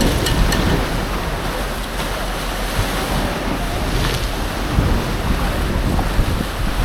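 Strong storm wind buffeting the phone's microphone over rough, breaking sea waves, a steady loud rush with a few faint knocks.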